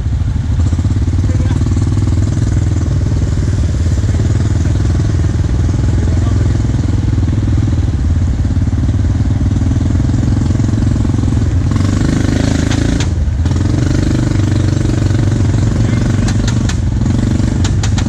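ATV engine running steadily under load close by as it tows a stuck side-by-side out of a mud hole on a strap. The note grows fuller about twelve seconds in and dips briefly just after, with a few sharp clicks near the end.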